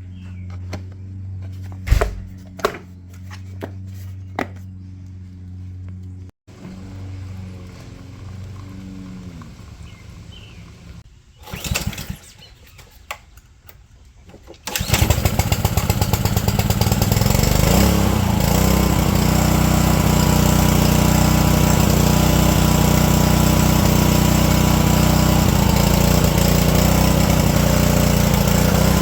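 A few scattered clicks and knocks of handling, then about halfway through a Honda GCV160 single-cylinder engine on a pressure washer starts abruptly and keeps running steadily. It is running again after its gummed-up carburetor has been cleaned.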